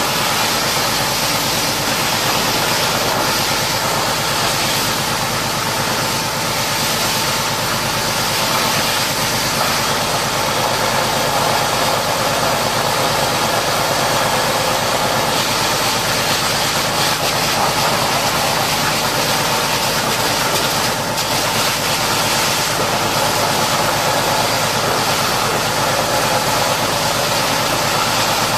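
An engine running steadily at idle, with a constant hiss over it.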